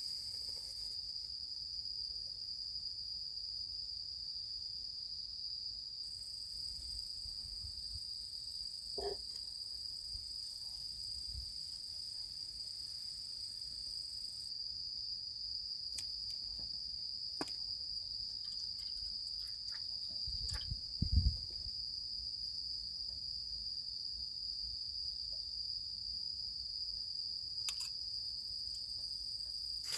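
Steady, continuous chirring of autumn insects such as crickets, holding one high pitch. A dull low knock comes about two-thirds of the way through, with a few faint clicks.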